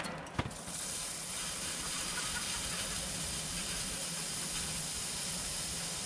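A short knock, then a steady, even hiss that sets in just under a second in and holds.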